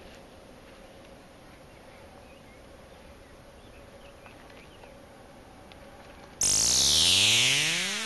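Faint outdoor background with a thin steady tone and a few small chirps. About six and a half seconds in, a loud electronic sweep sound effect cuts in, with tones falling from high and rising from low at the same time, crossing and then fading.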